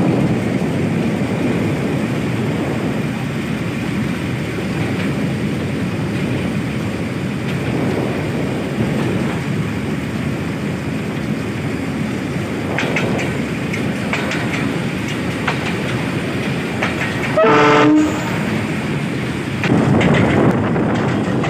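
A Bangladesh Railway intercity train running at speed, heard from the outside of a coach: a steady rumble of wheels on the rails with wind. A short horn blast sounds about seventeen seconds in.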